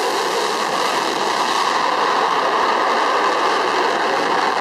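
Steady, loud roar of an F-35A's single F135 afterburning turbofan, with the afterburner lit as the jet pulls up in a climb.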